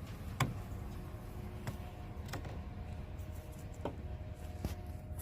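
A handful of light, separate clicks and taps, about five over a few seconds, from hand work fitting a plastic door-panel clip and the interior panel of a pickup truck door.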